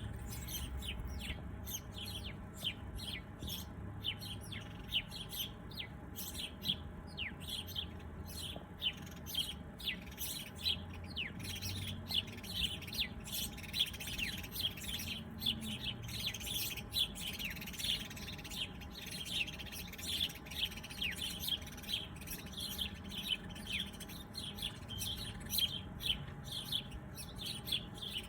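Many small birds chirping together in a dense, continuous chorus of short, high chirps, many of them quick downward-sweeping notes.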